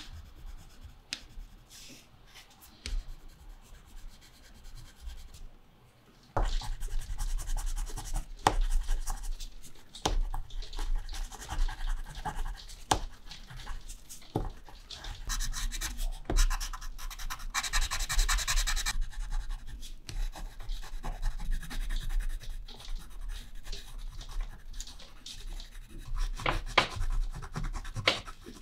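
Caran d'Ache Neocolor II wax pastel scratching and rubbing across watercolour paper in strokes, faint at first and much louder from about six seconds in, with a spell of fast scribbling a little past halfway.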